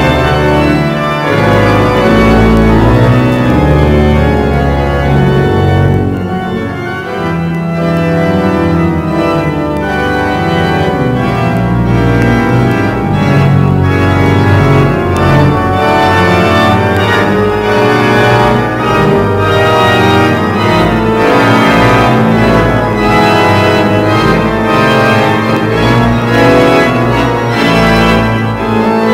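Eton College Chapel pipe organ playing loud, sustained full chords over a deep pedal bass. About six seconds in the bass drops out for a lighter passage, and the full organ returns a few seconds later.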